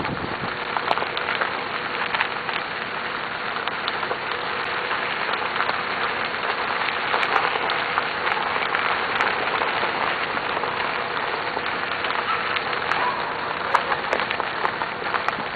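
Steady outdoor rushing noise with scattered faint crackles and no clear single source.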